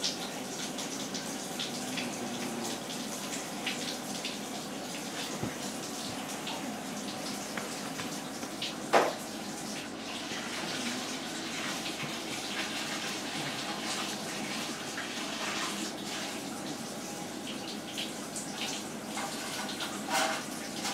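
A French bulldog licking and chewing at its bed, a steady run of wet smacking and clicking sounds. One brief louder sound about nine seconds in.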